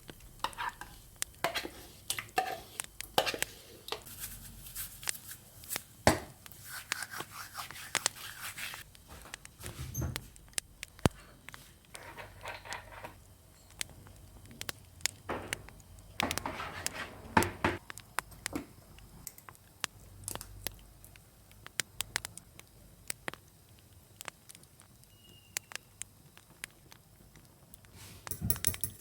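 Kitchen handling sounds while cooking: irregular sharp taps and clinks of utensils and dishes, mixed with short bouts of rustling and crinkling like packaging being handled.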